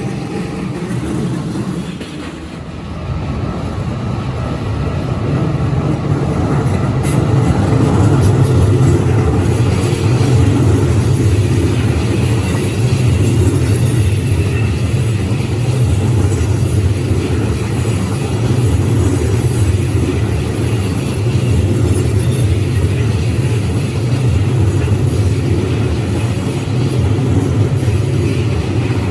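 Keikyu Line electric train running past, a steady low rumble of wheels on rails and running gear. It builds over the first few seconds, then holds.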